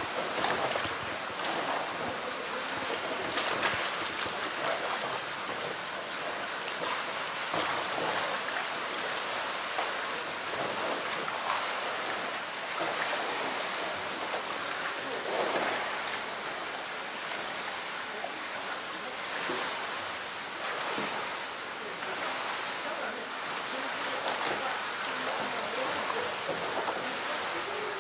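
Water sloshing and splashing as a polar bear pushes and rolls a plastic drum through the shallow edge of its pool, over a steady high-pitched drone.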